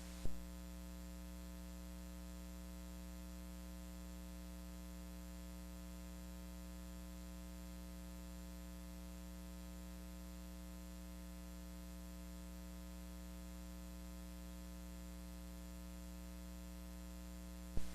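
Steady electrical hum with faint hiss, an unchanging background with no other sound apart from a brief tick just after the start and another near the end.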